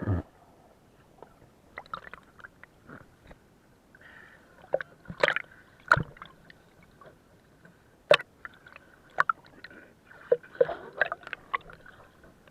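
Sea water sloshing and gurgling close to the microphone, with irregular sharp clicks and knocks.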